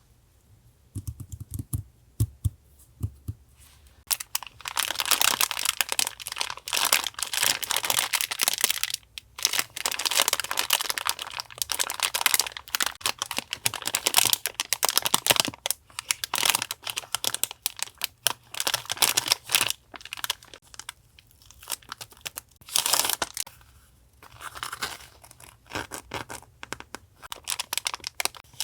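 Gift parcel being unboxed: paper and plastic packaging torn and crinkled in bursts with short pauses, after a few light taps in the first seconds.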